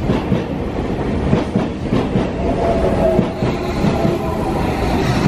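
Sotetsu electric commuter train moving along the platform close by, its wheels clattering over the rail joints in a run of knocks. A steady electric whine comes in about halfway through.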